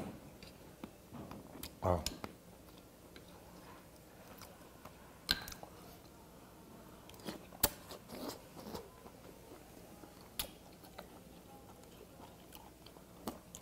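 Quiet eating sounds: spoonfuls of seonji-guk (ox-blood soup) taken from a stone bowl with a metal spoon, with chewing and a few sharp clicks of the spoon, the loudest about seven and a half seconds in.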